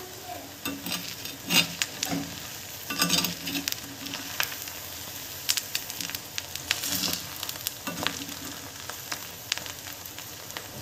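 Battered banana and potato pieces deep-frying in sesame oil in a clay pot, a steady sizzle full of small pops, while a perforated metal spoon stirs them, with several louder scrapes and knocks against the pot.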